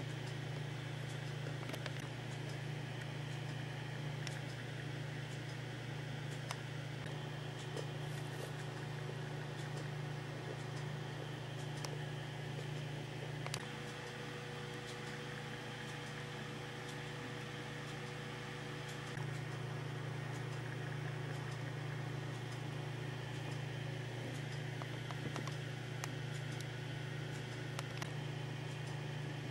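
A steady low mechanical hum with hiss, running unchanged, with a few faint clicks. About 13 seconds in, a faint higher steady tone joins for about five seconds.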